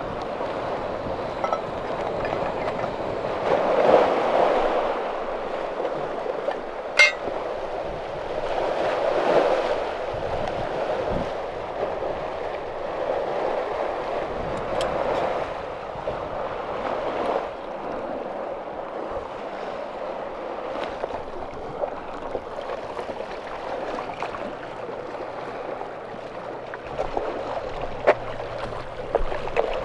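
Sea water lapping and washing against a stone seawall in slow, recurring swells, with a sharp clink about seven seconds in.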